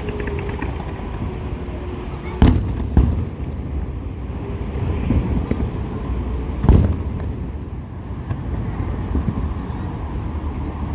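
Fireworks shells bursting in deep booms: two close together about two and a half seconds in, and another near the seventh second, over a steady background rumble.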